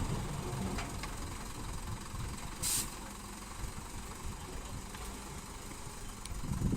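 Diesel engine of earth-moving machinery running steadily at low speed, with a short burst of hiss about two and a half seconds in; the engine grows louder near the end.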